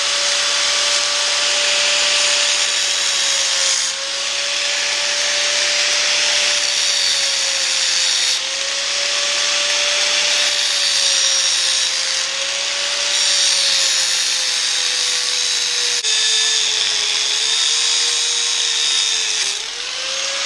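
A power saw cuts through steel angle iron: a steady motor whine over a harsh hiss of cutting. The pitch sags slightly and the sound eases off every few seconds. The blade is one the owner thinks is burnt.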